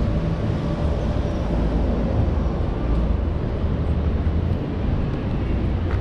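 Steady low rumble of road traffic on the bridge overhead, unbroken and without distinct events.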